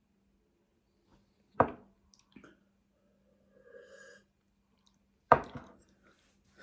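Close-up eating sounds: a few sharp wet clicks and knocks, the loudest about one and a half seconds and five seconds in, with a short wet slurp-like sound between them, over a faint steady low hum.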